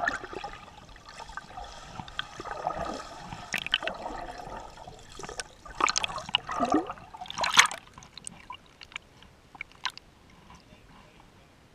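Pool water splashing and gurgling close around the camera, with several sharp louder splashes, settling after about eight seconds to faint lapping and drips.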